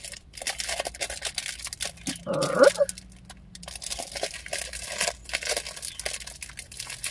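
Plastic candy-bar wrapper crinkling and rustling as it is pulled and twisted by hand in a struggle to open it. About two seconds in comes a short strained groan that rises in pitch.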